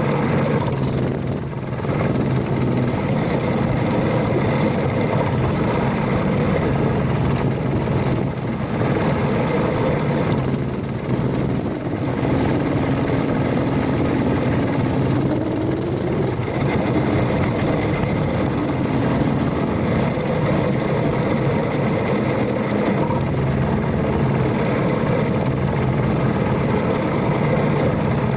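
Predator 212cc single-cylinder mini bike engine running loud at speed, with wind rushing over the microphone. The engine dips briefly twice, about a second and a half in and again about eleven seconds in, and its pitch swings around the middle.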